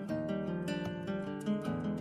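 Background music: acoustic guitar, plucked and strummed notes.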